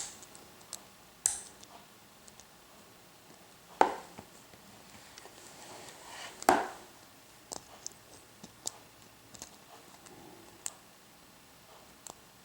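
Lock pick and tension wrench working the serrated pins of an American 1100 series padlock: scattered small clicks and faint scraping, with two louder clicks near the middle.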